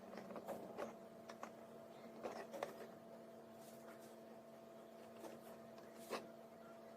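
Faint, scattered clicks and taps of the wires of an Ethernet cable being pushed into a plastic RJ45 connector and the connector being handled, the loudest tap about six seconds in.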